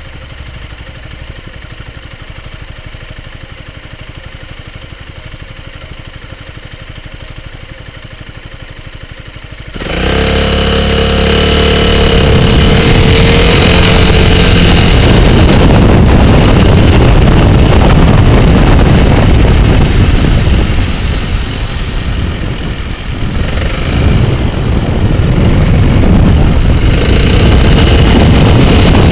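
Piaggio MP3 three-wheeled scooter's engine idling at a standstill, then about ten seconds in the scooter pulls away and the sound becomes much louder, with engine and heavy road and wind rush as it rides on. The level dips briefly about two-thirds through, then comes back up.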